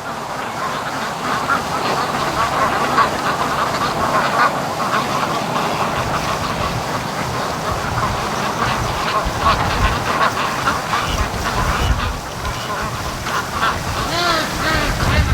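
A flock of Pekin ducks quacking together in a steady chatter of many short calls, with wind gusting on the microphone, heaviest in the second half.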